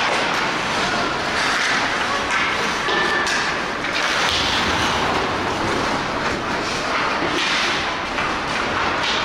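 Ice hockey in play: steady scraping of skate blades on the ice, with a few clacks of sticks and puck.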